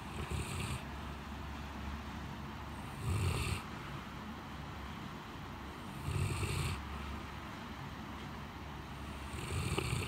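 Great Pyrenees snoring in deep sleep: four snores about three seconds apart, one with each breath, over a steady background hum.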